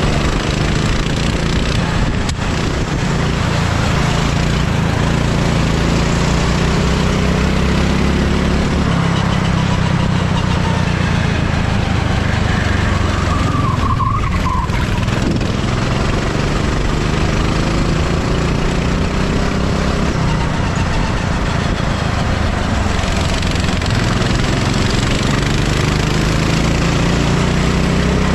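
Go-kart engine heard onboard at racing speed, its pitch climbing and falling again and again as the throttle opens and closes through the corners, over steady wind and tyre noise.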